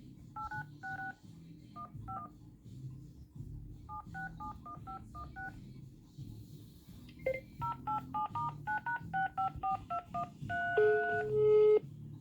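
Phone keypad DTMF tones as a number is dialled: groups of short two-tone beeps, the fastest run of them about two-thirds of the way in. A few longer steady tones follow near the end.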